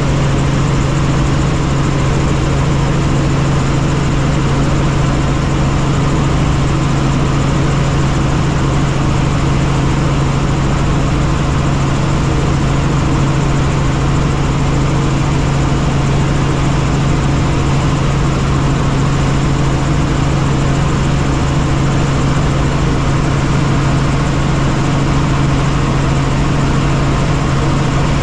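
Helicopter in flight: a loud, steady drone with a strong low hum over a broad rushing noise, unchanging throughout.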